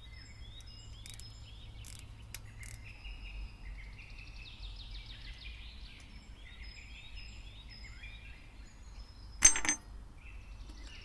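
Small birds chirping and trilling, with a few faint clicks and one sharp metallic clink about nine and a half seconds in, from tools and fittings being handled while a motorcycle engine's valve cover is taken off.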